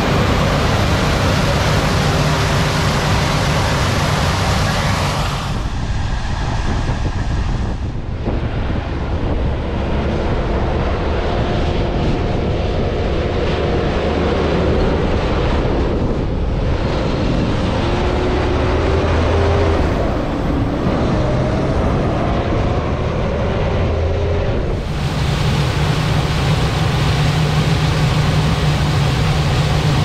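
Claas Lexion 8800 combine harvester running steadily as it harvests corn. In the middle, a semi-truck pulling a grain trailer drives by, its engine pitch rising in steps as it accelerates. The combine's steady low hum returns near the end.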